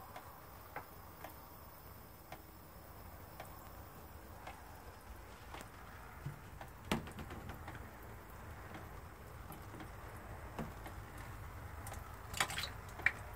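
Faint, irregular ticks and clicks, about one a second, over a low steady background, with a few sharper clicks near the end.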